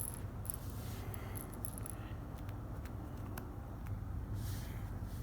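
A cat toy jingles briefly at the start, then faint scraping and a few light clicks of play, over a steady low hum.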